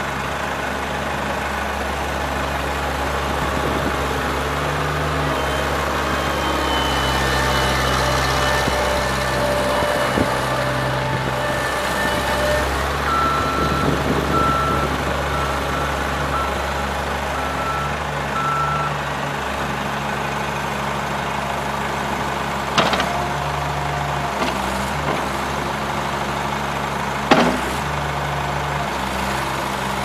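Caterpillar 216B skid steer's diesel engine running steadily as the machine drives and turns. A backup alarm beeps for several seconds around the middle, and two sharp clanks come near the end.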